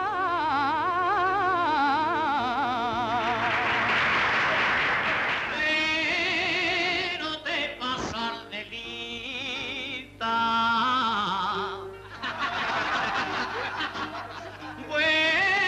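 Fandango sung to instrumental accompaniment: a woman's voice holds a long, ornamented line with a heavy tremble. About four seconds in, audience applause breaks in, and then a man's voice takes up the next verse.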